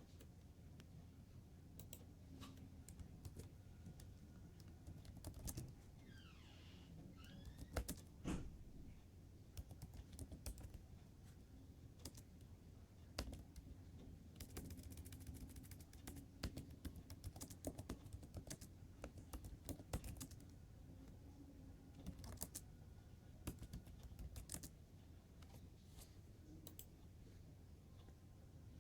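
Faint computer keyboard typing: irregular runs of keystroke clicks with pauses between them, over a low steady hum.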